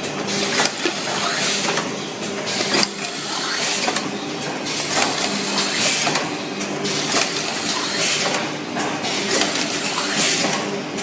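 Automatic tube filling and sealing machine running: a steady hum under repeated clacks and short bursts of air hiss every second or so as it cycles through filling and sealing tubes.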